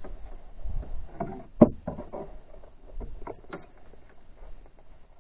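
Irregular knocks and rustles of handling in a canoe while a pike is played on the line, with one sharp knock about one and a half seconds in.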